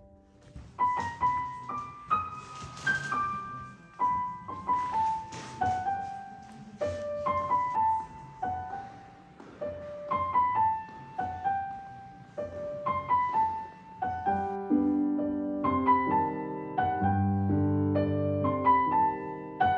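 Background piano music: a gentle melody of short falling phrases, with lower chords coming in to fill it out about three-quarters of the way through.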